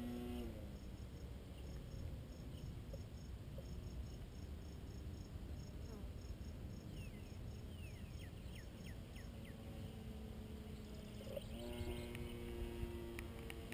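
Electric motor and propeller of a small RC P-51D Mustang warbird. Its whine drops away as the throttle is pulled back just after the start, then returns and rises about two seconds before the end. In between are wind rumble on the microphone and a regular pulsing insect chirp.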